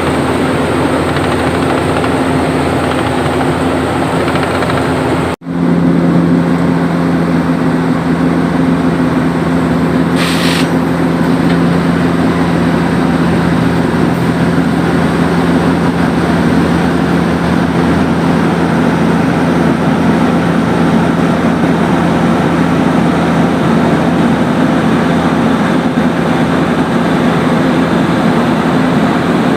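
Heavy diesel machinery running steadily at asphalt road paving. The sound cuts out for an instant about five seconds in and comes back with a lower engine note added, and a short hiss sounds about ten seconds in.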